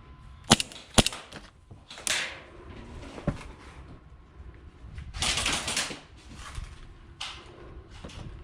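Airsoft gun firing: two sharp cracks about half a second apart, then a fainter single shot a couple of seconds later. A longer rustling noise comes about two seconds after that.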